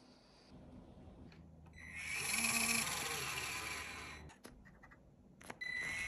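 A small electric motor and gear train whirring, most likely the Traxxas TRX-4M RC crawler's drivetrain. It starts with a rising whine and runs about two and a half seconds, then a few light clicks follow. The whir starts again shortly before the end.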